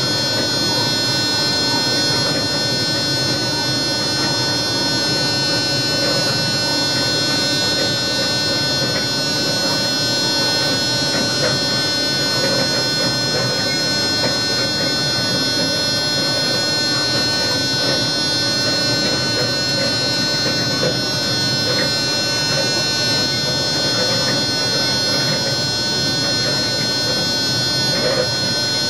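Steady, multi-toned electrical whine and hum in a moving train's driver's cab, over the even rumble of the train running along the track.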